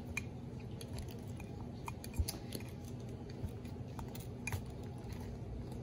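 A spoon stirring a wet sauce of chopped tomato, cilantro and lime juice inside a ceramic mug, giving scattered light clicks and scrapes against the mug's sides.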